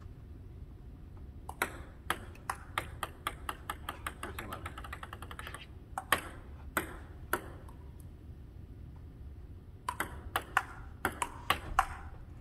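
Table tennis ball clicking off paddles and the table: first a ball bouncing with bounces coming faster and fainter as it settles, then a few single hits and a quick rally of paddle and table clicks near the end.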